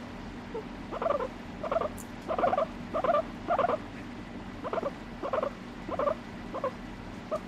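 Abyssinian guinea pig calling in a repeated series of short calls, roughly three every two seconds, with a brief pause about midway.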